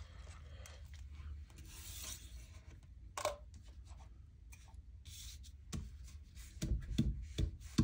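Altered playing cards and paper being handled and slid about on a craft table, rustling, with a click about three seconds in and several knocks near the end as cards are set down.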